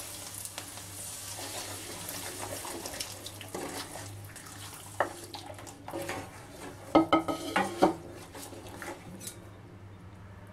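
Thin gram-flour batter pouring from a plastic bowl into a steel kadai of fried onions, with a few clatters of utensils against the bowl and pan about halfway through, then a wooden spatula stirring the liquid in the pan.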